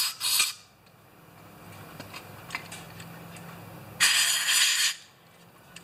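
Aerosol carburetor cleaner sprayed through its red straw into a carburetor's passages: a short hiss at the start and a second hiss of about a second about four seconds in.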